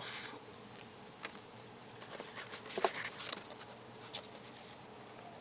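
Steady high-pitched insect chorus, with light crinkling and rustling as a plastic-wrapped lens cloth and paper leaflets are handled; the loudest crinkle comes right at the start.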